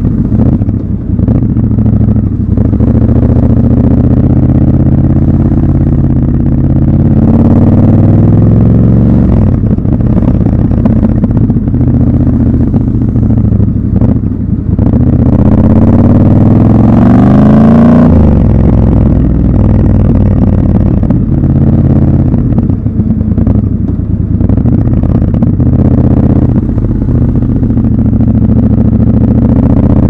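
Triumph Scrambler 1200 XC's parallel-twin engine running at low road speed. Its pitch rises as the throttle is opened, twice, most strongly a little past halfway, then drops suddenly.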